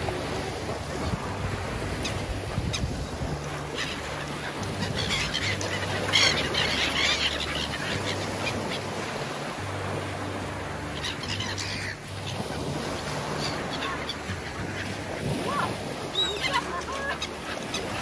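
Seagulls calling repeatedly, many short calls one after another, busiest about six seconds in.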